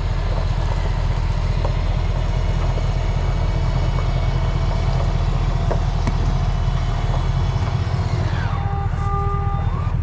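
Motorhome slide-out extending on its electric motor, a steady whine over the low idle of the diesel pusher's engine. The whine changes pitch about a second and a half before the end, as the slide finishes coming out.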